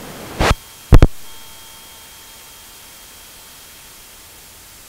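Steady hiss of in-flight cockpit noise. A short rustle about half a second in and a loud sharp double click about a second in.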